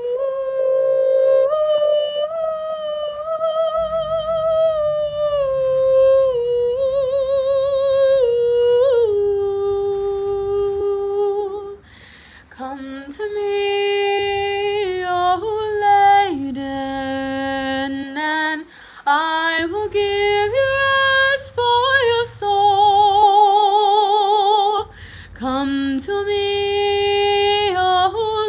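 A woman singing alone, without accompaniment: a slow melody of long held notes with vibrato, hummed or sung without clear words. The voice breaks off briefly about twelve seconds in.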